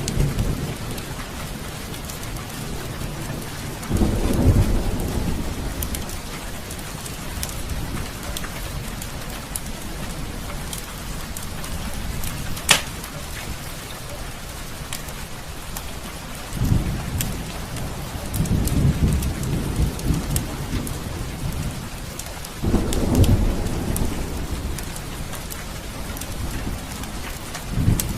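Heavy rain pouring steadily, with thunder rumbling low four times. Scattered sharp crackles from a fireplace fire, one loud snap about halfway through.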